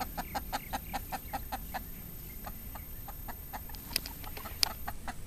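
Brown hens clucking in a steady run of short clucks, about six a second. Two sharp clicks come about four seconds in.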